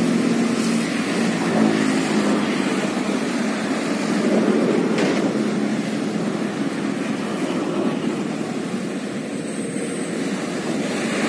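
Steady road-traffic noise from passing vehicles, a continuous rush with a faint engine hum early on and a single light knock about five seconds in.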